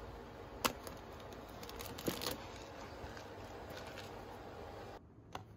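Plastic-wrapped instant noodle cups being handled on a shelf: a few sharp crinkles and clicks over a steady low background hum. The hum drops away suddenly near the end.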